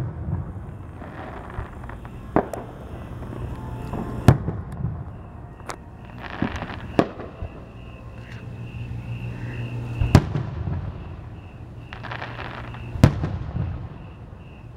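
Aerial fireworks shells bursting: about seven sharp bangs at uneven intervals, the loudest about four, ten and thirteen seconds in, with spells of crackling between them.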